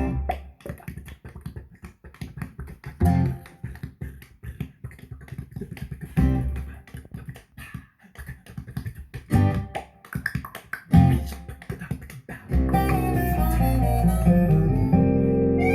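Music played back through an Onkyo Integra A-8250 stereo amplifier for a sound test: plucked guitar with quick percussive taps and a deep bass note about every three seconds. About three-quarters of the way through, a fuller, sustained passage comes in.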